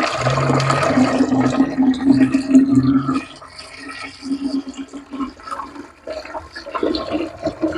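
Water poured from a container into a poultry drinker: a loud gush for about three seconds, then a lighter, uneven trickle.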